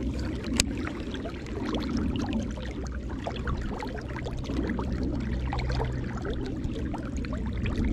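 River water flowing and lapping around a waist-deep wader, a steady low wash with many small ticks and trickles. A single sharp click about half a second in.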